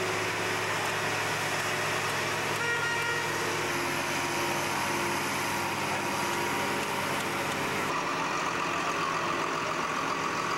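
Diesel engines of large John Deere farm tractors running steadily as they drive past, with a short horn toot about two and a half seconds in.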